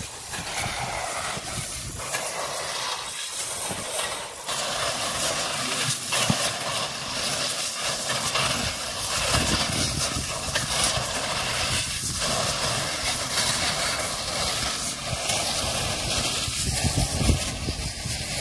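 Wind buffeting the microphone, a steady, gusting rush with low rumble.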